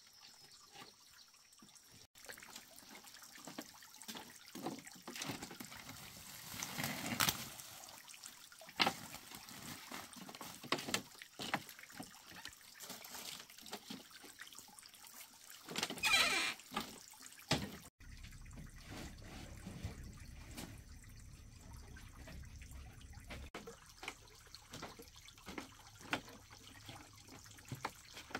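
Water splashing and dripping in irregular small bursts, with two louder splashes about 7 and 16 seconds in.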